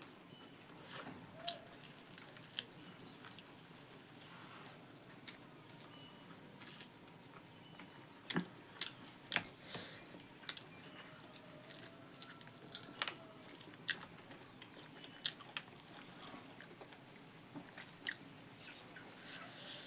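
Close-up mouth sounds of a person eating rice with pork: irregular wet chewing clicks and smacks, scattered through the stretch with a few louder ones.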